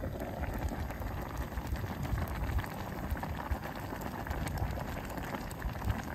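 A pot of red stew boiling hard on a camp gas stove: dense, steady bubbling and popping with occasional low plops.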